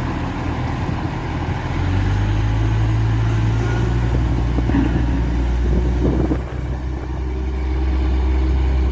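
Diesel engine of a Caterpillar 966H wheel loader running as the machine drives over gravel: a steady low drone that grows louder about two seconds in.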